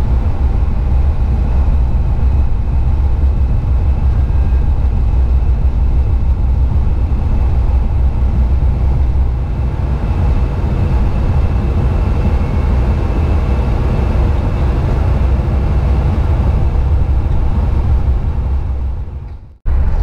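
Steady low rumble of road and engine noise inside a vehicle moving at highway speed. Just before the end it fades out and cuts off for a moment, then comes back.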